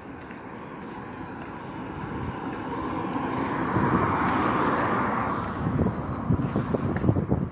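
A road vehicle passing on the adjacent road: the tyre and engine noise swells to a peak about halfway through, then fades. Wind buffets the microphone in the second half.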